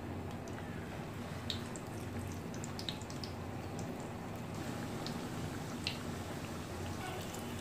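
Hot oil sizzling around square vegetable samosas deep-frying in a pan, with scattered small crackles and pops.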